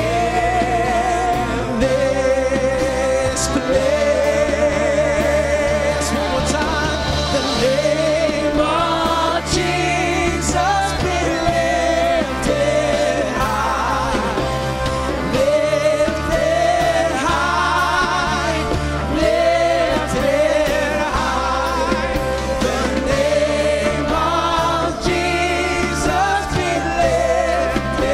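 Live worship band playing a gospel worship song: several singers holding long, wavering notes over keyboard, bass guitar and drums.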